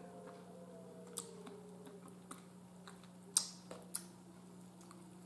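Quiet eating sounds of a smoked turkey leg being eaten by hand: a few sharp mouth and fork clicks as meat is bitten and pulled off the bone, the loudest about three and a half seconds in, over a faint steady hum.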